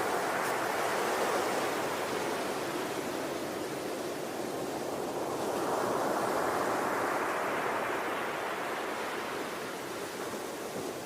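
Ocean waves breaking and washing on a shore, a steady surf rush that swells and ebbs slowly, with a swell cresting about six seconds in.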